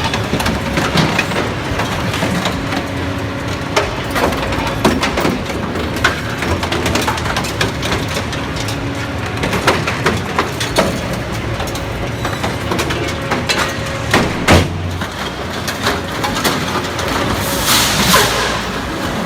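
Hydraulic demolition shear cutting up an old truck: a steady run of metal cracking, snapping and crunching over the running machine, with one heavy clank about three-quarters of the way through.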